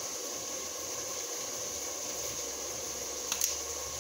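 Steady kitchen hiss with a faint steady hum underneath, and a few light clicks about three and a half seconds in.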